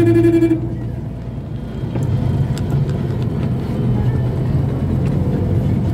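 A vehicle horn gives one short honk on a single steady pitch that stops about half a second in. Then comes the steady low rumble of the car's engine and surrounding slow traffic, heard from inside the taxi's cabin.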